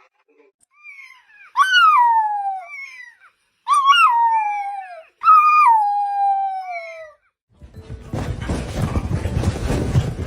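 Dog howling in three long cries, each sliding down in pitch, with a few fainter short whines between them. A rustling noise follows near the end.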